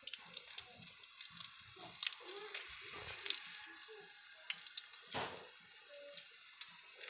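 Food frying in hot oil in a wok: a steady sizzle dotted with many small sharp crackles, with one louder crack about five seconds in.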